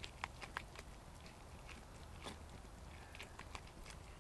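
A spoon stirring thickened rice and beef jerky in a metal Crusader cup: scattered small clicks, ticks and scrapes against the cup.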